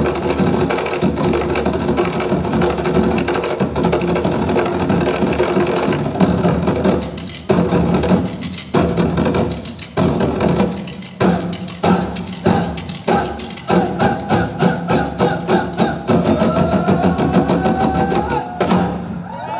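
An ensemble of drummers playing upright drums with sticks in unison: a dense, steady groove, then sharp unison strikes broken by short pauses. The strokes quicken into a fast run and stop abruptly about a second before the end.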